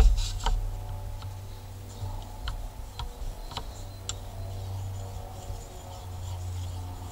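Steel knife blade clicking and tapping against a whetstone, a knock and then about six sharp separate clicks, as the Condor Nessmuk's blade is turned over and set on the stone to sharpen the other side. A steady low hum runs underneath.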